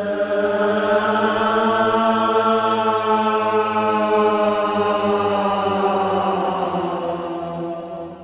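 Eerie background music: one long, choir-like held drone that swells in and fades away near the end.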